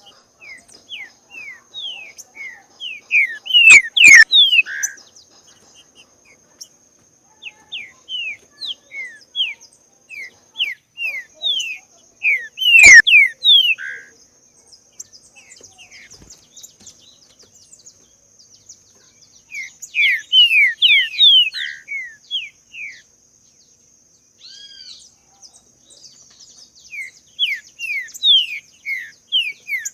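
Green-winged saltator (trinca-ferro) singing in bouts of quick, downward-sliding whistled notes, with pauses between phrases. A steady high insect buzz runs underneath, and two sharp clicks sound, about four seconds in and about thirteen seconds in.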